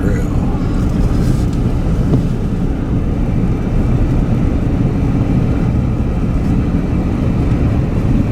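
Steady road and engine noise of a moving car, heard from inside the cabin as an even low rumble.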